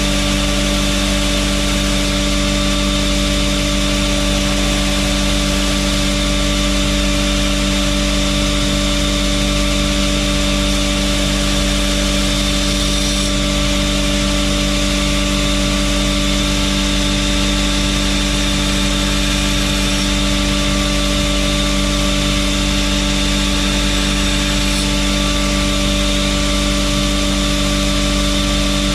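Knifemaker's belt grinder running with a steady, unchanging motor hum and belt noise.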